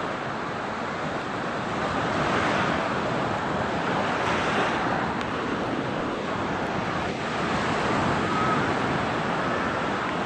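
Sea waves washing onto a beach: a steady rush of surf that swells louder a few times as waves break.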